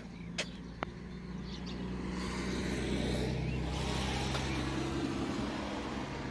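A motor vehicle's engine running with a steady low hum, its noise growing louder about two seconds in and then holding.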